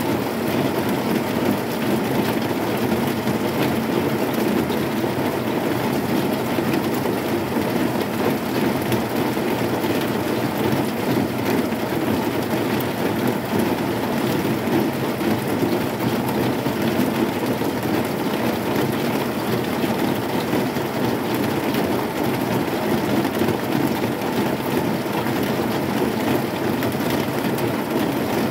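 Heavy rain falling on a corrugated zinc sheet roof: a steady, dense patter that keeps an even level throughout.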